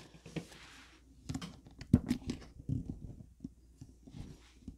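Small printed foil sachets crinkling and tapping as they are handled and set into a plastic bowl: scattered short rustles and clicks, the sharpest about two seconds in.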